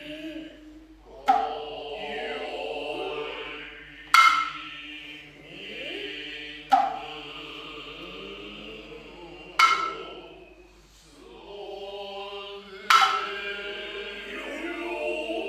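Noh hand drums (kotsuzumi and ōtsuzumi) struck sharply about every three seconds, five times. Between the strikes the drummers give long drawn-out vocal calls (kakegoe), and a noh flute plays.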